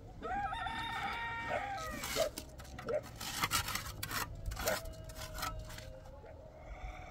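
A rooster crows once, a long wavering call of nearly two seconds, followed by a run of sharp knocks and clatter.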